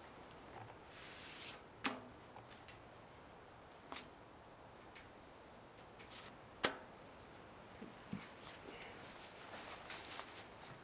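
Soft rustling of a tortilla wrap being turned and moved by hand on the flat metal top of a wood stove, with three sharp clicks about two, four and just under seven seconds in, the last the loudest.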